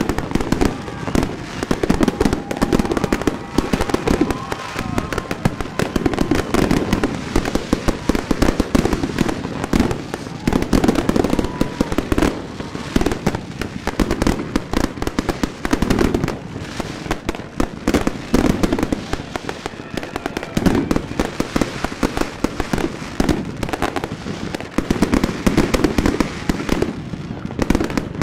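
Dense, continuous New Year's fireworks: many rockets and firecrackers bursting and crackling at once, with no pause between the bangs.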